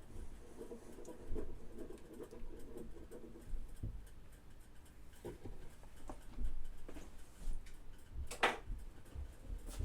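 Light, scattered clicks and knocks of kitchen utensils and dishes being handled, with one sharper click about eight and a half seconds in.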